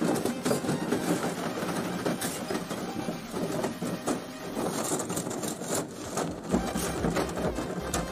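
Soft copper refrigeration tubing clinking, rattling and scraping against itself and the board as coiled loops are fed through a flat spiral evaporator coil: a dense, continuous run of small metallic clicks.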